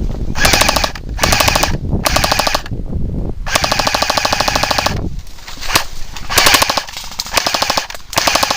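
Airsoft rifle firing on full auto: rapid, evenly spaced shots in three short bursts, then a longer burst of about a second and a half, followed by several more short bursts.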